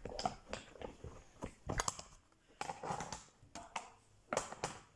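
Irregular small clicks and taps of plastic makeup items being handled and rummaged through in a zippered makeup bag.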